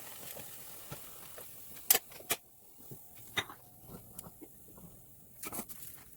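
A few sharp clicks and knocks, like hard objects being handled and set down, over a steady hiss that stops about two seconds in.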